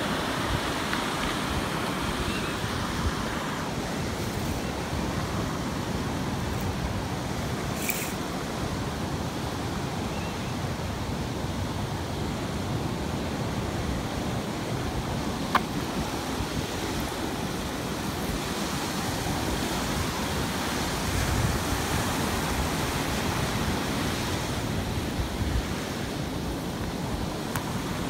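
Steady rush of wind over the microphone on a moving beach land yacht, mixed with breaking surf. A sharp tick sounds about eight seconds in and again about fifteen seconds in.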